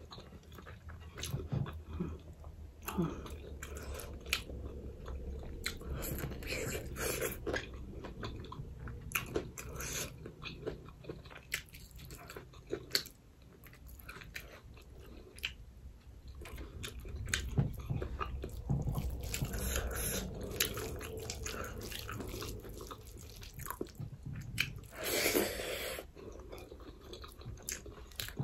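Close-miked chewing and lip-smacking of someone eating rice and dal by hand, with many short wet clicks and fingers gathering rice on a plate. Near the end comes one louder noisy sound about a second long.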